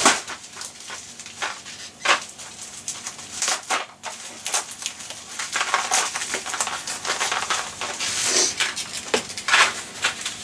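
Packaging of coin-cell batteries being handled and unwrapped: irregular crinkling and rustling with many sharp crackles.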